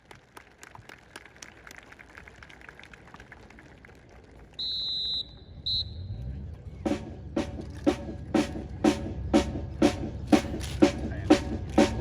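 Faint regular ticking, then a short high steady whistle blast about halfway through with a brief second toot. Then a drum beat sets in at about two beats a second over a low bass, as drill music starts.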